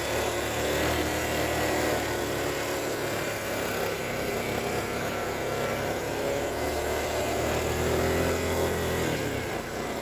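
ATV engine running at trail speed, its pitch wavering as the throttle shifts, easing off about a second before the end.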